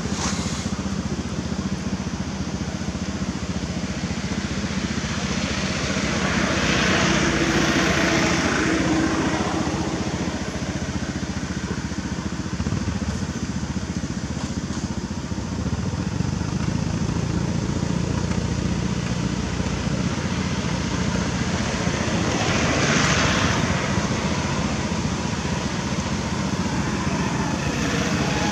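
Road traffic running steadily, with a vehicle passing louder about a quarter of the way in and again later on.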